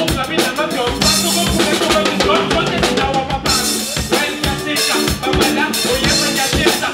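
Live band music, with a drum kit prominent: regular drum strikes over guitar and other pitched instruments.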